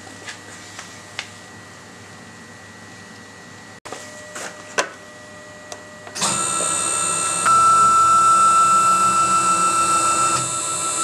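Key presses clicking on a CNC router's handheld DSP controller, then a few seconds in the router's axis motors start driving the gantry to its home position with a steady multi-tone motor whine, louder and with one stronger high tone for a few seconds near the end.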